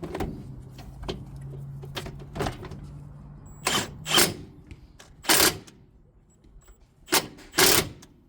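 Power tool tightening the bolts of a sway bar bracket in short bursts: a low steady hum at first, then about six brief, loud bursts.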